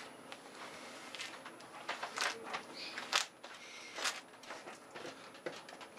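Small metal trowel scraping wet DAP cement out of a plastic quart tub and spreading it across a hard surface: a string of irregular short scrapes and clicks.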